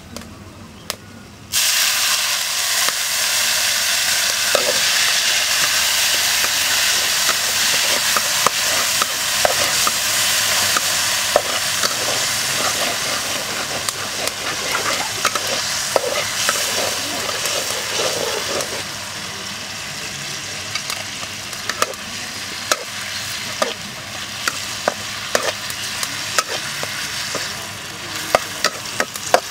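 Sliced garlic frying in hot oil in a metal wok, with a dense sizzle that starts abruptly about a second and a half in and eases a little later on. A metal ladle stirring the food clicks and scrapes against the wok again and again.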